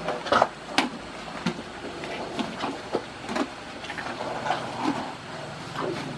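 Asian elephants eating bananas: irregular crunching, rustling and knocks as they pick the fruit up with their trunks and chew.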